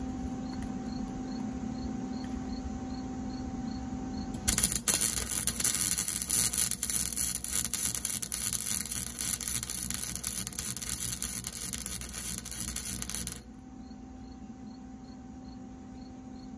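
Wire-feed (MIG) welder arc crackling steadily for about nine seconds, starting a few seconds in and cutting off suddenly near the end, as a nut is welded onto a broken bolt to heat it and break it loose.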